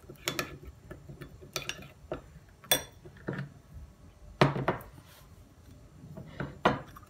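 A spoon clinking and scraping against a small glass bowl while stirring a wet garlic and lemon mixture, a few separate clicks. About four and a half seconds in, a plate is set down on the table with the loudest knock.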